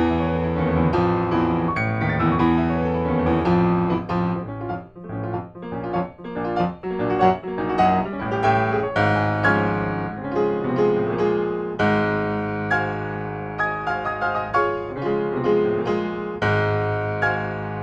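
Fazioli full concert grand piano played loudly and fast, dense chords and quick runs over held bass notes, with heavy low chords struck about twelve seconds in and again near the end. The piano is freshly tuned.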